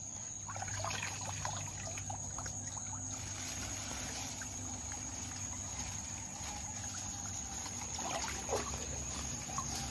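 Shallow muddy stream water splashing and trickling around a person wading and working with his hands in it. A steady high insect trill runs behind it.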